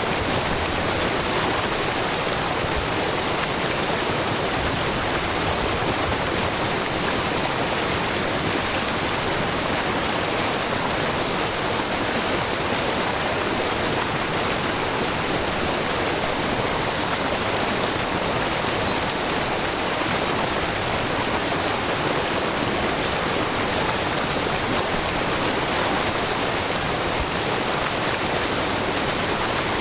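Steady rushing and splashing of a wide, low waterfall, with spring water falling in many thin streams from a rock face into a pool.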